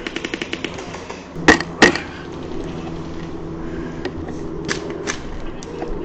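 Airsoft gunfire. A rapid full-auto burst of even clicks ends within the first second, then come two sharp single shots in quick succession and, near the end, two fainter shots.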